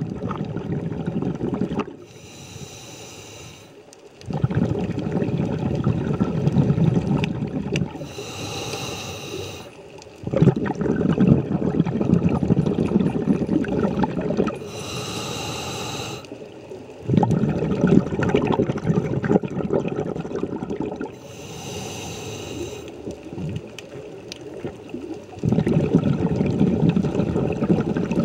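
Scuba diver breathing through a regulator underwater: a hiss of air drawn through the demand valve alternates with a longer, louder bubbling rumble of exhaled air, repeating every six seconds or so.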